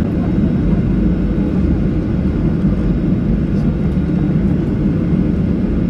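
Steady low rumble of a Boeing 737-800's CFM56 engines, heard inside the cabin as the jet taxis at low power onto the runway. There is no spool-up to takeoff thrust.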